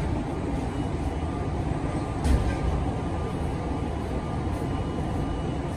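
Steady low rumble and hum of a Budd R32 subway car standing at a station platform with its doors open, with a single low thump about two seconds in.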